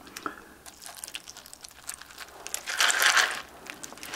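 Milk poured from a plastic jug into a glass bowl of Oreo O's cereal rings, splashing over the cereal from about two and a half seconds in. Before that, light clicks and rattles as the bowl and jug are handled.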